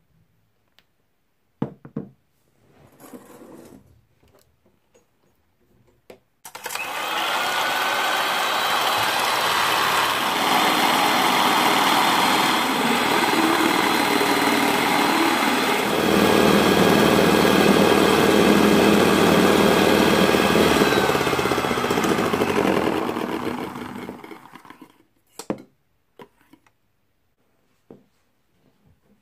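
Electric hand mixer whipping egg whites and xylitol in a stainless steel bowl, beating them to stiff peaks. The motor starts with a rising whine about six seconds in, runs steadily for about eighteen seconds, grows fuller and deeper about halfway through, then winds down. A few light clicks and taps come before and after it.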